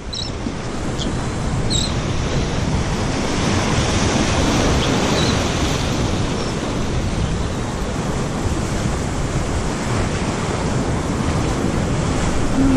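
Surf washing against a jetty, a steady rushing noise, with wind buffeting the microphone.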